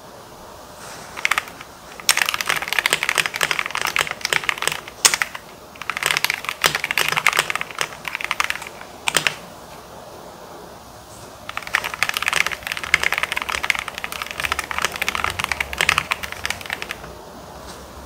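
Typing on a KBD67 Lite R4 mechanical keyboard with lubed and filmed Gateron Milky Yellow linear switches and Osume Dusk keycaps. The keystrokes come in three runs with short pauses between them.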